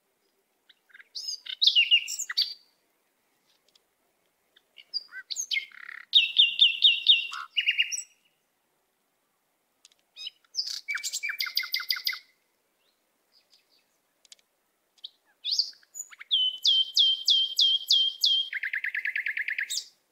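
A songbird singing four phrases a few seconds apart. Each phrase is a fast run of repeated high notes, and the longer ones drop to a lower run at the end.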